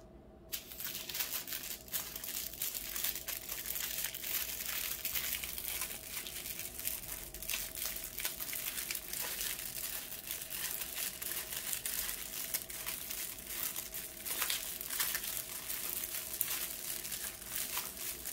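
Small plastic bags of diamond painting drills crinkling continuously as they are handled and sorted.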